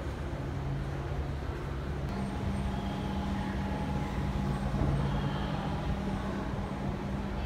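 Steady low mechanical hum with held low tones, its pitch stepping up slightly about two seconds in.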